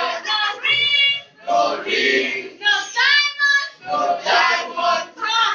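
A group of schoolchildren singing together in short, loud phrases, with brief breaks between them.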